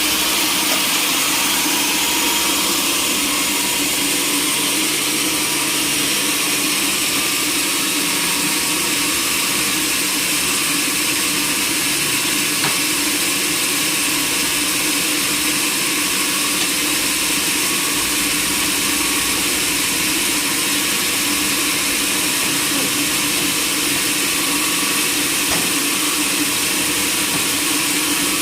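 Sawmill machinery running steadily: an engine drone under a constant high-pitched hiss, unchanged throughout.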